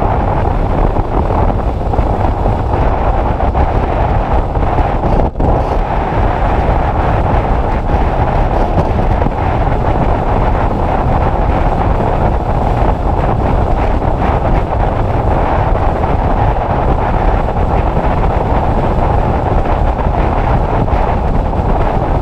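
Heavy wind noise buffeting the microphone of a camera on a moving motorcycle: a steady, loud rush with no clear engine note standing out. It dips briefly about five seconds in.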